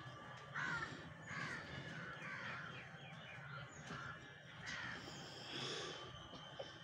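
Crows cawing, a string of short calls one after another, several in a few seconds.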